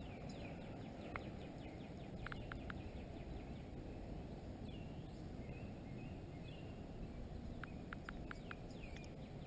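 Faint outdoor background of low steady noise, with distant birds chirping now and then and a few light clicks.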